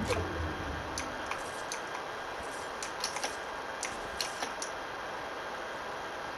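Computer keyboard keys and mouse buttons clicking irregularly during play, a dozen or so sharp clicks over a steady background hiss, with a brief low rumble right at the start.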